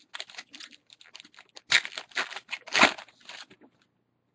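Foil wrapper of a Bowman baseball card pack crinkling and tearing as it is opened and the cards are pulled out: a run of short scratchy rustles, loudest about two seconds in.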